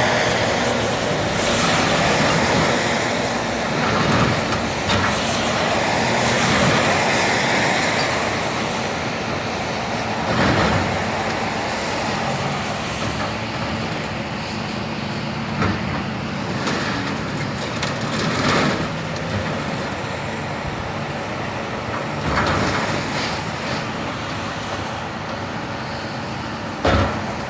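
Diesel engines of heavy demolition machinery running steadily, with several scattered knocks as scrap metal is handled.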